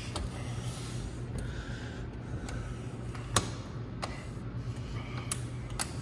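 Sharp clicks and knocks of a sliding glass patio door's handle and latch being worked, the loudest about three and a half seconds in and a few more near the end, over a steady low hum.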